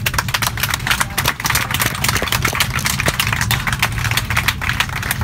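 Many passengers clapping in an airliner cabin, a dense steady patter of claps over the low hum of the aircraft.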